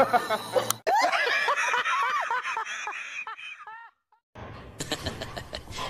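People laughing hard in high-pitched, repeated fits of giggling, starting suddenly about a second in. The laughter cuts off just before four seconds in, and a noisy stretch follows after a brief silence.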